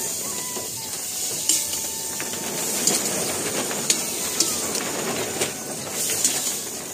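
Ridge gourd pieces sizzling in hot oil in a kadhai while being stirred with a metal ladle, which scrapes and clicks against the pan several times.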